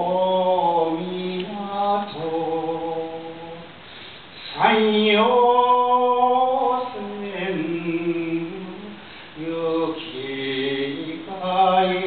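Shigin, Japanese poetry chanting, by an elderly man's solo voice without accompaniment, holding long notes that step between pitches. About halfway through comes a louder, higher held note.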